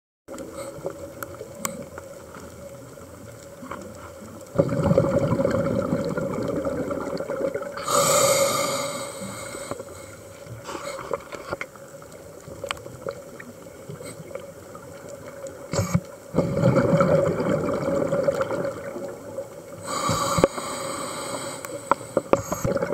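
Scuba diver's regulator breathing underwater: two slow breaths, each a long bubbling exhalation followed by a shorter hissing inhalation, the first starting about five seconds in and the second about sixteen seconds in. A steady faint hum runs underneath.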